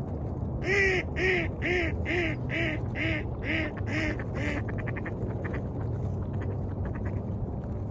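A duck quacking a run of about eight evenly spaced quacks, loudest at the start and tapering off, followed by a few seconds of faint rapid chatter, over a steady low rumble.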